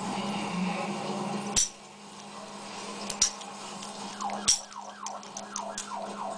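A siren in the background sweeps down in pitch over and over. It drops away about a second and a half in and comes back near the end. Three sharp metallic clicks are the loudest sounds, over a steady low hum.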